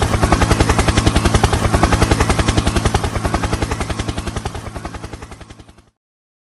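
Helicopter rotor thumping rapidly and evenly over a steady engine whine, fading away and ending about six seconds in.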